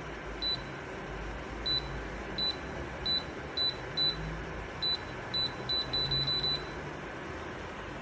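Short high electronic beeps from a fan heater's control panel as its buttons are pressed, about a dozen of them, irregularly spaced and coming quickly one after another near the end, over a steady hiss.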